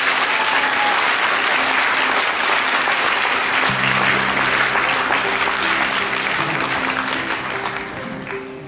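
Audience applauding, with soft instrumental music underneath; the clapping dies down near the end.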